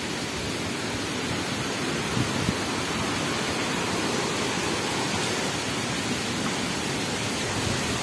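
Steady, even rushing noise of water, with no change in level.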